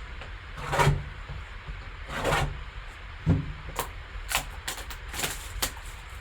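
Hands handling a sealed trading-card box and its packaging: a series of short rubs, scrapes and light knocks of cardboard and wrapper.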